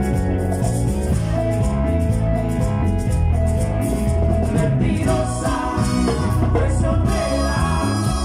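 Live band music: keyboards playing over electric bass and drums with a steady beat.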